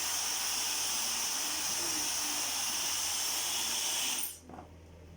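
Dyson Supersonic hair dryer with its smoothing nozzle blowing at a steady high airy rush, switched off about four seconds in.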